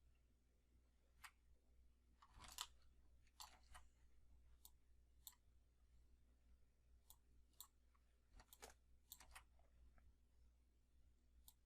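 Faint computer mouse clicks, about a dozen scattered irregularly with some in quick pairs, over a low steady hum.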